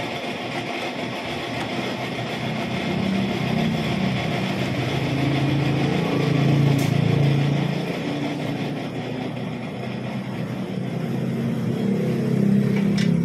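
Metal lathe running, spinning a propeller shaft with a newly welded universal-joint yoke in its four-jaw chuck: a steady mechanical drone with a low hum that swells louder twice.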